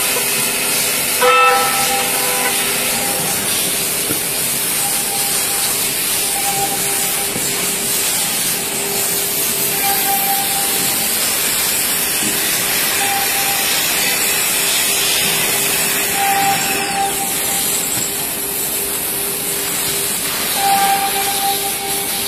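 SUDIAO D1-E door lock and hinge CNC machine running: a steady loud hiss with a spindle whine, one tone held and a higher one that comes and goes every few seconds. A short knock about a second in.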